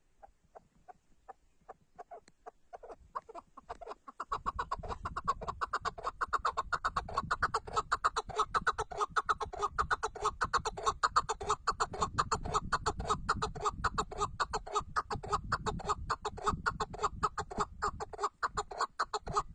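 Chukar partridge (Tatar keklik) calling: a long run of rapid clucking notes, soft and about four a second at first, then much louder and faster from about four seconds in, stopping abruptly near the end.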